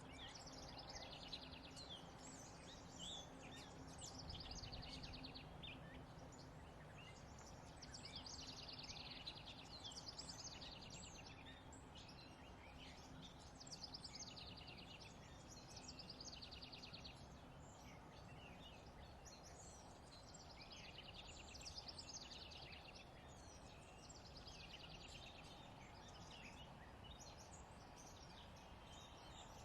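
Faint songbird song: a short, rapid trilled phrase repeated every two to three seconds over a steady outdoor background hiss.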